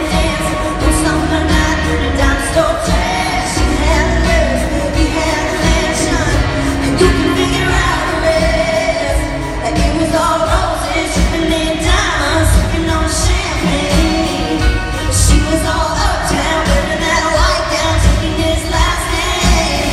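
Live country song: a female lead vocal sung over a full band.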